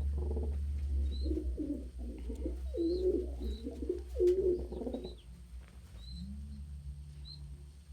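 Domestic pigeons cooing, a run of low coos that goes on for about five seconds, with faint short high peeps repeating over it.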